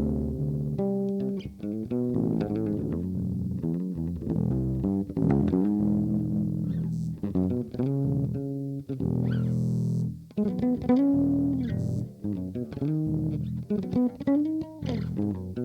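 Electric bass played through fuzz, overdrive and delay pedals: a melodic line of held notes, some of them sliding up and down in pitch.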